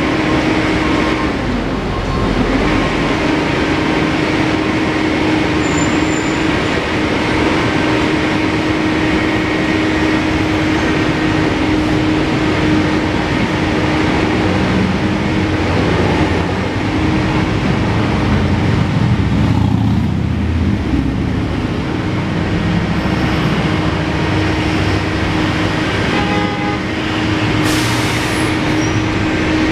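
Loud, steady urban street noise: a mechanical rumble with a constant low hum.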